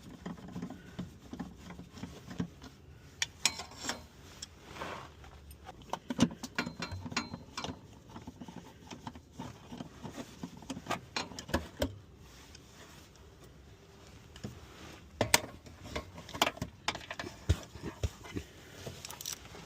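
Hand tools at work on nuts and bolts: irregular sharp metallic clicks and clinks of a socket ratchet and wrench undoing fasteners, with brief pauses between bursts.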